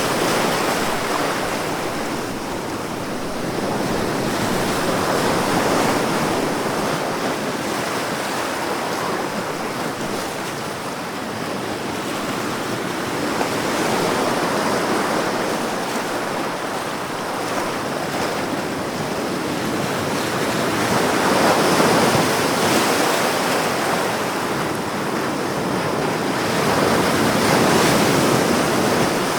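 Ocean surf: waves washing in as a steady rush that swells and eases every several seconds.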